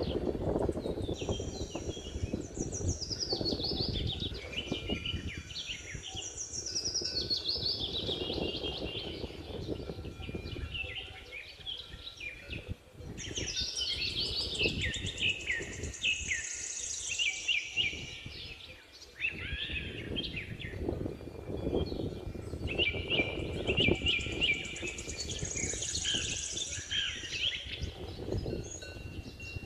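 Several songbirds singing, with repeated phrases that run downward in pitch, over a low, uneven rumbling noise.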